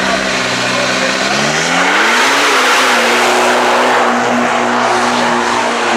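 Turbocharged diesel engine of a four-door Isuzu D-Max drag pickup launching hard down the strip: the engine note climbs steeply about two seconds in, then holds high as the truck pulls away, trailing heavy black smoke.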